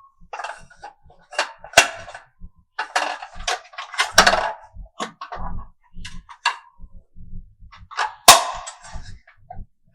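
Marbles rolling and clattering down a wooden HABA slope marble run: irregular clacks and rattles, with sharper louder knocks about 2, 4 and 8 seconds in as marbles drop and strike the pieces.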